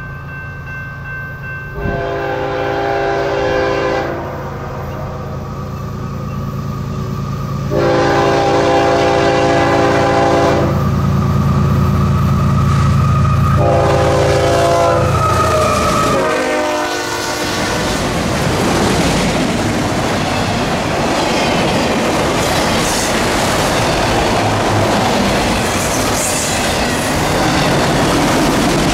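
A freight train headed by a CSX ES44AH diesel locomotive passes close by. The lead locomotive's air horn blows three times over the rising rumble of the diesel engines, and the last blast drops in pitch as the locomotives go by. After that the loaded autorack cars roll past with a steady noise of wheels on rail.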